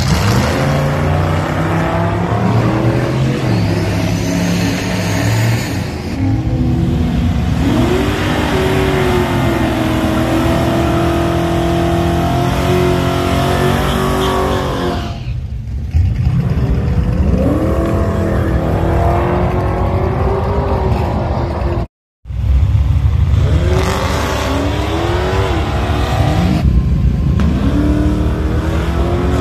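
Drag cars doing burnouts and launching: engines revving hard with tyre hiss in the burnouts, then the engine note rising again and again as the cars pull away. Several runs follow one another, with a brief dropout about two-thirds of the way through.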